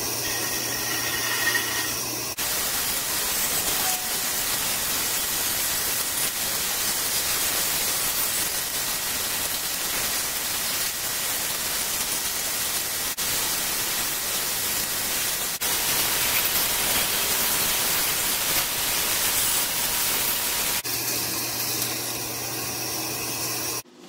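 Band saw cutting Douglas fir: the blade runs on its own with a steady motor hum, then saws through the wood with a loud, dense rasping noise from about 2 s in until about 3 s before the end, when it returns to running free.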